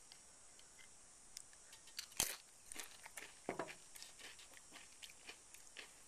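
A person biting and chewing crunchy food, most likely a chip with salsa, with quiet scattered crunches and one sharper crunch about two seconds in.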